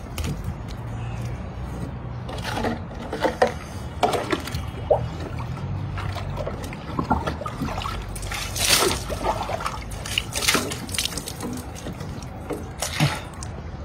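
Water splashing and dribbling as it is scooped by hand from a plastic bucket and poured over the body in a bucket bath: a string of irregular splashes, the loudest about nine seconds in.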